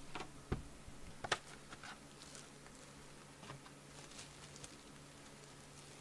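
Shrink-wrapped trading-card boxes being handled and set down: a couple of short knocks, the louder about a second and a half in, then a few light crinkles and taps of the plastic wrap. A faint steady hum lies underneath.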